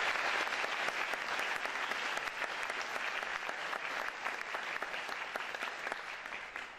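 Audience applauding, many hands clapping together, tapering off near the end.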